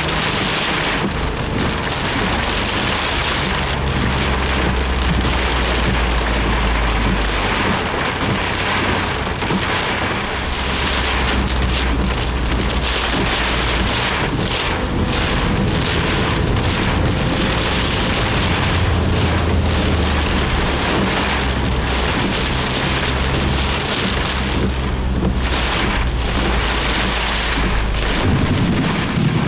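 Torrential rain pounding on a Suzuki Jimny's roof and windscreen, heard from inside the cabin while driving, a dense steady hiss. A low rumble swells and fades several times underneath.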